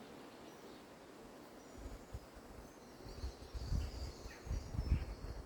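Outdoor background with faint bird chirps. From about two seconds in there are low rumbling buffets on the microphone, which are the loudest part.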